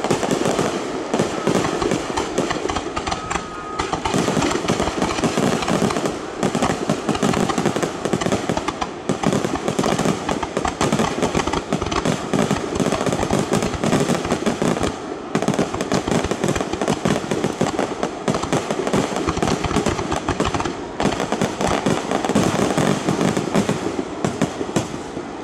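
A rapid-fire barrage of aerial fireworks shells bursting over one another, a continuous run of booms and crackling with no pauses.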